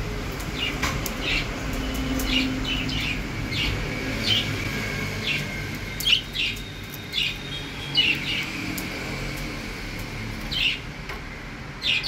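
Budgerigars chirping: about a dozen short, high chirps at uneven intervals over a steady low hum.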